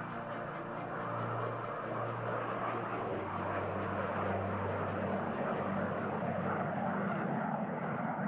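Boeing 747SP jetliner's four turbofan engines running at takeoff power on the runway: a steady, dense jet rush.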